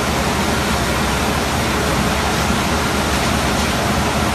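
Steady, loud rushing noise of a heavy mineral gravity-separation plant running, with slurry flowing through its pipes and spiral chutes.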